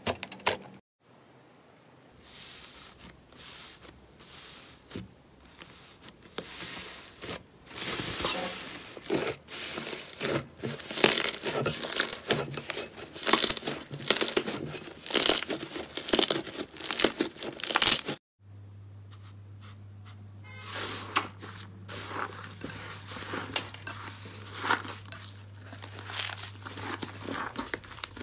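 Slime being squeezed and stretched by hand, giving dense, irregular crackling and tearing sounds. About 18 seconds in it cuts to a quieter clip of the same kind of crackling over a steady low hum.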